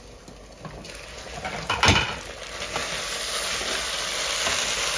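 Food frying in a hot pan: a sharp clatter of cookware just before two seconds in, then a steady sizzle that builds and holds.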